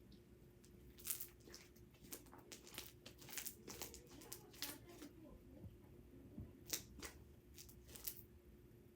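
Homemade slime being stretched and squished by hand, giving a run of irregular sticky crackles and clicks that stop near the end.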